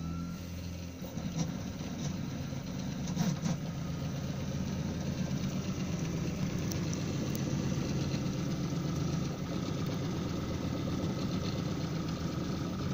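Desktop 3D printer printing a part: its stepper motors buzz steadily as the print head and bed move, with a few light clicks.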